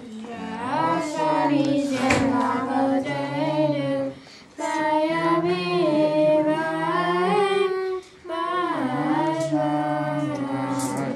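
A family group of children and adults singing a Chanukah candle-lighting song together, in three long phrases with short pauses between them.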